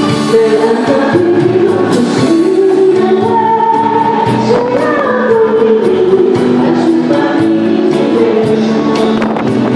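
Background music with a singing voice carrying the melody over steady instrumental backing.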